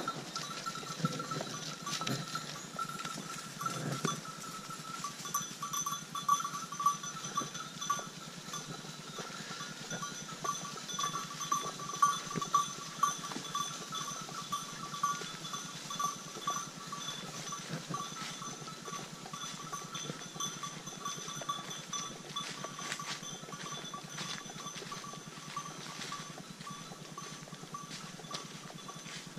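A flock of sheep moving along a woodland track with their bells ringing steadily, and hooves crunching in dry leaves.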